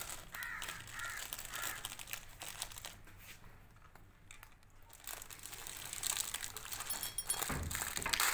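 Faint rustling and crackling, with a short faint call in the first second or two; the crackling drops away in the middle and comes back denser over the last three seconds.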